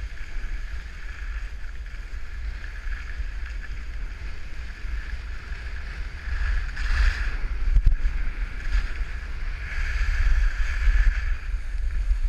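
Wind buffeting a head-mounted camera's microphone during a downhill ski run, with the steady hiss of skis sliding on snow. The rush grows louder about seven seconds in and again a few seconds later.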